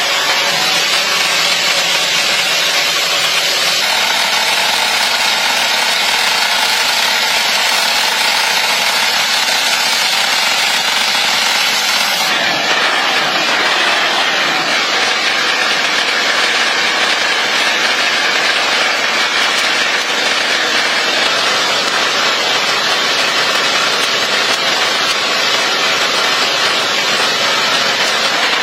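Steady, loud machine noise, with a change in its tone about twelve seconds in.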